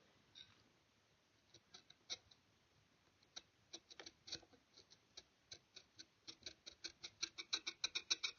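Faint, light tapping on the work in a wooden rifle stock being inlet: a few scattered taps at first, then coming faster and evenly, about four or five a second near the end, each with a slight ring.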